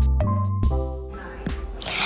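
Background electronic music with sustained notes over a bass line, fading away after about half a second. A short rush of noise comes in near the end.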